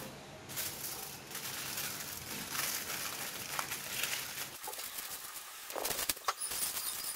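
Aluminium foil crinkling and crackling as it is pressed and crimped by hand over the rims of small ceramic bowls, with a few sharp clicks near the end.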